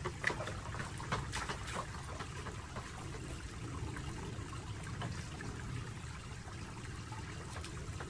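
Water splashing and sloshing as a plastic bucket is rinsed in a shallow stream pool: a few splashes in the first two seconds, then a steady trickle of running water.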